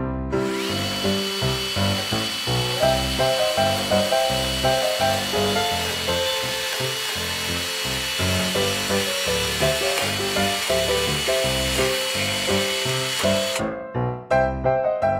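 Miniature chainsaw running and cutting through a small wooden log: a steady, high-pitched whine that starts about half a second in and cuts off shortly before the end. Piano music plays throughout.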